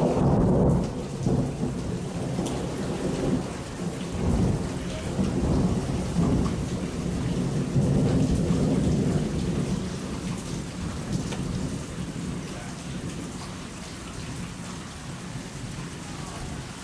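Rolling thunder over steady rain, rumbling in long surges through the first half and fading away over the last several seconds while the rain keeps falling.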